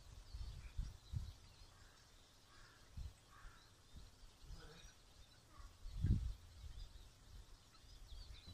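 Low puffs of air buffeting the earphone microphone now and then, the strongest about six seconds in, over faint bird calls in the background.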